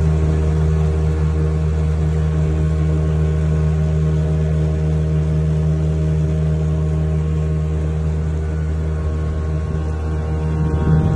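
Outboard motor of an aluminium fishing boat running at a steady cruising speed, an even drone that hardly changes.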